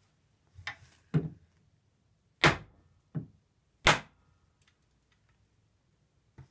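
Rubber mallet striking a wooden chair frame to knock a loose mortise-and-tenon joint apart, the leg held in a bench vise: about five dull knocks a second or so apart, the two loudest in the middle of the run.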